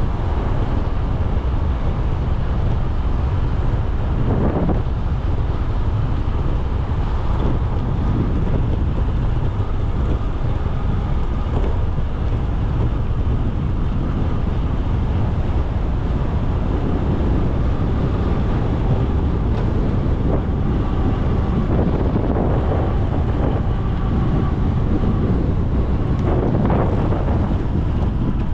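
Wind buffeting the microphone of a rider on a moving bicycle: a steady low rumble with road noise beneath it.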